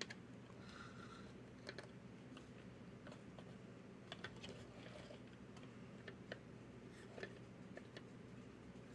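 Near silence with a low steady hum and scattered faint clicks and taps, like small hard parts being handled on a workbench.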